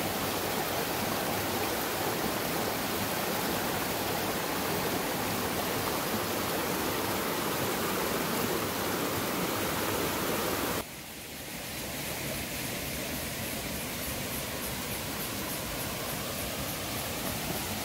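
Rushing water of a rocky stream spilling over small cascades between boulders, a steady rush. About eleven seconds in it cuts abruptly to a quieter, thinner rush of water.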